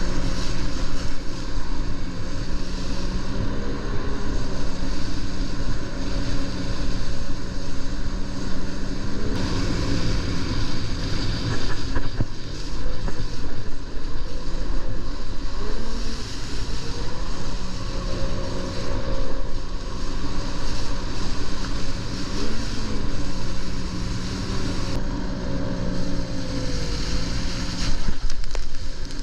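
Solar Super Jet 430 inflatable jet boat's engine running hard under way, its pitch rising and falling a little with the throttle, with river water rushing past the hull.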